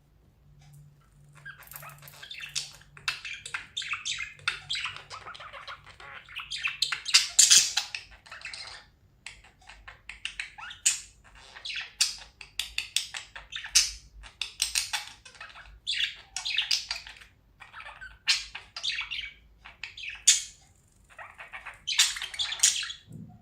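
Budgerigars chirping and warbling, a rapid chatter of short squawky chirps in bursts of a few seconds with brief pauses.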